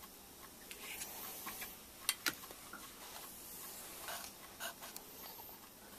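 Quiet handling noise: small clicks and light knocks of metal parts being worked, with a sharp pair of clicks about two seconds in and a few brief scuffs later on, over a faint ticking.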